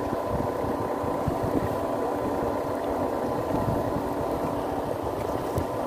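Fishing boat's engine running steadily, a constant low hum with a steady tone.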